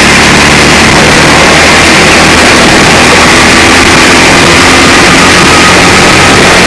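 Go-kart engine running hard at speed, heard from a camera mounted on the kart itself. The sound is steady, loud and overdriven, held at the top of the level the whole time.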